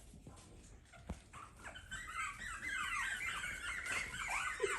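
A litter of Pomeranian puppies squealing and whining, many short high-pitched cries overlapping in a chorus that starts about two seconds in; the puppies are clamouring to nurse from their mother.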